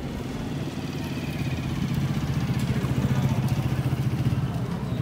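Motorcycle engine of a tricycle, heard from aboard, running steadily at low speed and growing a little louder about two seconds in.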